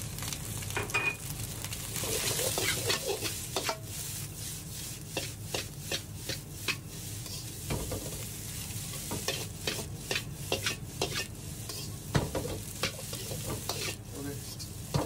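Fried rice being stir-fried in a wok: a metal spatula scrapes and knocks against the wok again and again as the rice is tossed and turned, over a light sizzle.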